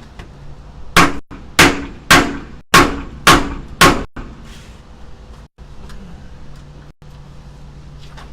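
Hammer striking six hard blows in quick succession, about two a second, driving a tight-fitting replacement window into its opening.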